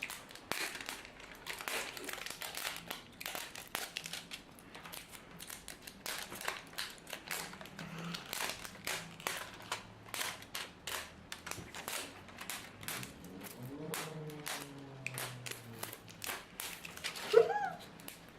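Plastic packaging crinkling and crackling in irregular bursts as it is handled and torn open. A short vocal sound comes near the end.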